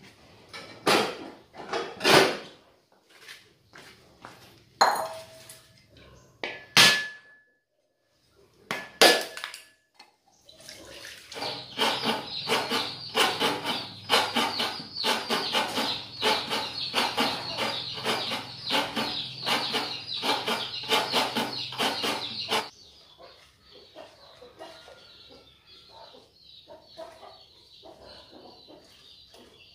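A few sharp clatters of bowls and pots set down on a concrete floor, then about eleven seconds of quick, rhythmic wet rubbing as small eels are scrubbed in coarse salt in a bowl to strip their slime. The rubbing stops abruptly.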